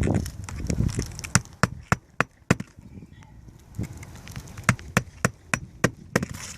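Hammer driving new roofing nails through the shingles around the new soil stack flashing, in two runs of quick strikes with a short pause between.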